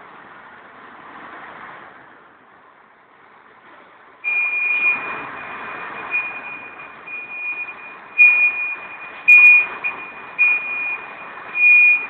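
A truck's reversing alarm sounds a steady high tone from about four seconds in, swelling louder and fading at irregular moments. Under it is the running rush of the truck's engine.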